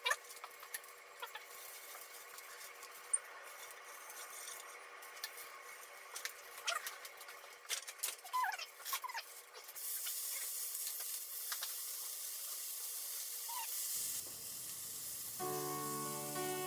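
Beef fat rubbed around a hot frying pan with chopsticks: faint sizzling with scattered clicks and a few small squeaks. About ten seconds in, a stronger steady sizzle starts as thin slices of marbled beef go into the pan. Music comes in near the end.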